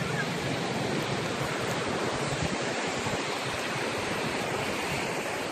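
Sea surf: a steady rush of waves washing in, with no break or single wave standing out.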